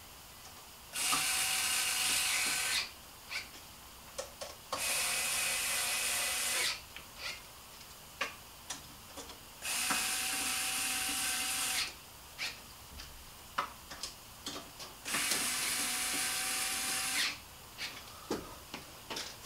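Cordless drill running in four bursts of about two seconds each at a steady speed, driving fasteners, with small clicks and knocks of handling between the bursts.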